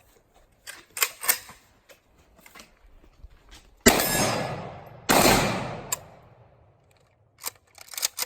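Two loud bangs about a second apart, each trailing off in a long rolling echo: AK-47 fire at a small tannerite target, the second blast deeper. A few light clicks come before and after.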